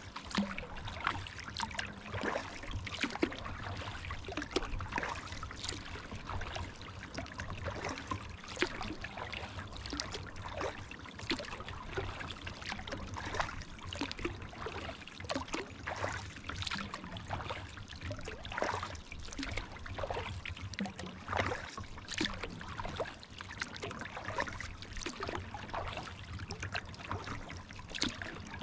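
Kayak paddle dipping and pulling through calm pond water, with a steady run of small splashes and trickles as water drips off the blades, over a low steady rumble.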